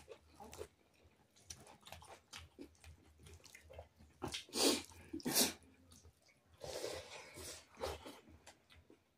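Eating sounds close to the microphone: chewing, lip smacks, and fingers mixing rice and curry on a plate. There are short scattered clicks throughout and a couple of louder mouth sounds about halfway through.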